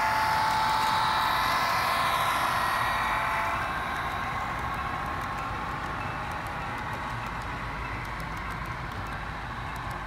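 Model railroad freight train passing. The diesel locomotives' sound, a steady chord of tones, fades out about three or four seconds in. It leaves the steady running noise of the freight cars rolling by, with faint clicking near the end.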